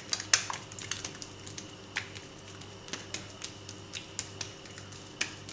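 Scattered light clicks and ticks of hands spreading and folding soft, oiled msemen dough on a work surface, over a faint steady hum.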